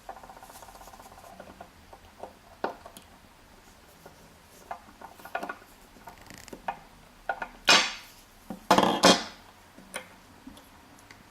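Small metal tools clicking and scraping against a Euro lock cylinder as its retaining clip is worked off the back of the plug. A quick rattling run of ticks at the start, scattered sharp clicks, and two louder rasping scrapes near the end.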